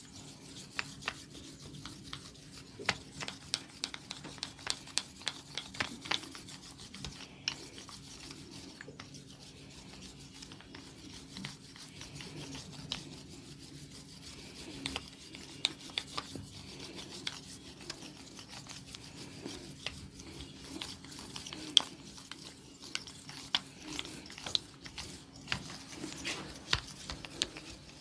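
A barber's hands rubbing and kneading an oiled scalp and hair, with the hair crackling in dense runs of small sharp clicks, heaviest about a quarter of the way in and again near the end. A steady low hum runs underneath.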